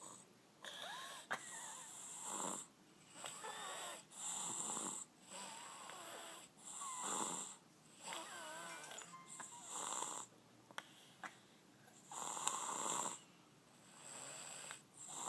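A sleeping baby snoring loudly and deeply, one snore every second or two, some with a thin wavering whistle in the breath.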